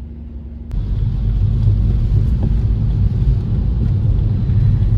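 A car driving on a rain-wet road: a loud, steady low rumble of road and tyre noise that comes in suddenly less than a second in.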